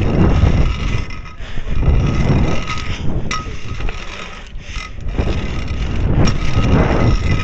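Trikke carving scooter's wheels rolling over a concrete skate bowl, the noise swelling and fading as it carves up and down the walls, with a couple of sharp clicks and wind on the microphone.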